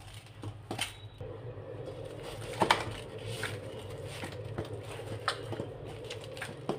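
Hands kneading soft, loose wheat-flour dough in a stainless steel bowl: irregular squishes and light knocks against the bowl, over a steady low hum.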